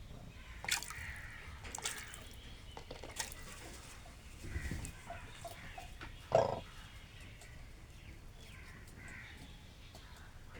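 Birds splashing while bathing in shallow water: a few sharp splashes and drips about one, two and three seconds in, and the loudest splash a little past the middle. Faint bird calls are heard in the background.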